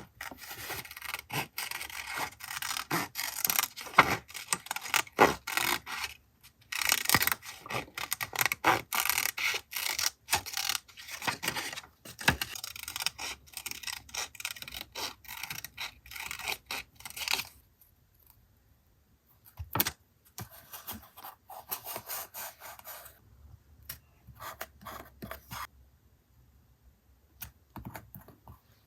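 Paper collage materials being handled on a journal page: rubbing, scraping and crisp taps of paper, dense for most of the first two-thirds, then thinning to scattered taps and short scrapes.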